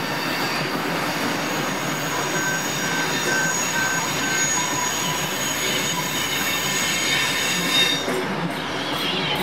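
Railway passenger carriages rolling past, their steel wheels rumbling on the rails with thin, high wheel squeal. The high squeal drops away about eight seconds in as the last carriage moves off.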